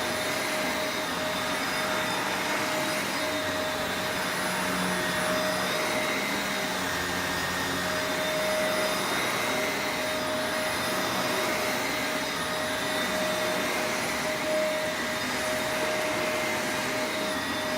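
Shark Rotator Professional Lift-Away upright vacuum cleaner running steadily while cleaning carpet, a constant rushing noise with a steady whine.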